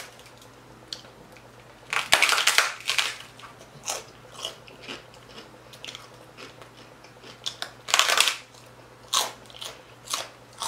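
A person biting into and chewing a crisp fried pork-skin chicharron tostada loaded with toppings. There are loud crunches about two seconds in and again about eight seconds in, with smaller crunching chews between.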